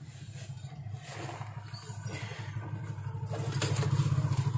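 A motor vehicle engine running, a low, steady, fast-pulsing throb that grows gradually louder. A few faint clicks come about three and a half seconds in.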